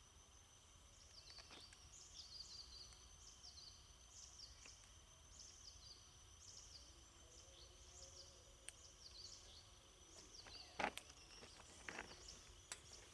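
Faint evening ambience: a steady high-pitched insect drone, with a bird repeating short downward chirps about once a second. A sharp click near the end, followed by a few lighter ones.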